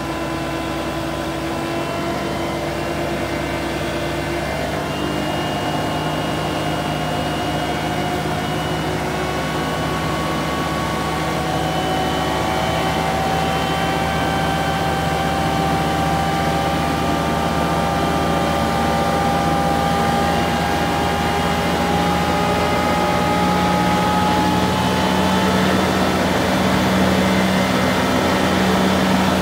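John Deere 325G compact track loader running at high engine speed with its FAE forestry mulching head spinning free: a steady mechanical drone with a whine that slowly rises in pitch as it grows louder.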